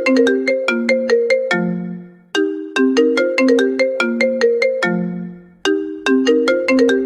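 Trap-style remix of an iPhone ringtone: a short melody of quick, bright, struck notes that repeats about every three seconds. Each phrase ends on a lower held note that fades away before the next begins.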